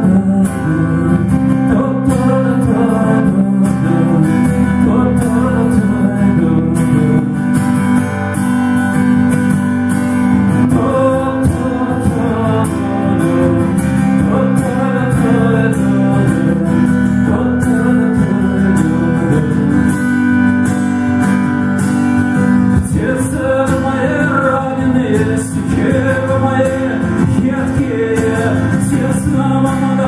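Live song: a man singing in Russian to a strummed steel-string acoustic guitar, played through a PA.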